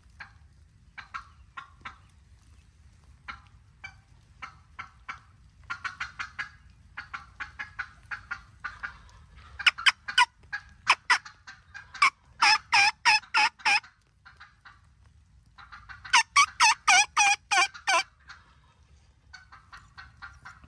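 Wild turkeys calling: a string of short calls, faint and scattered at first, building to loud fast runs of notes, two long runs of about four notes a second near the middle and toward the end.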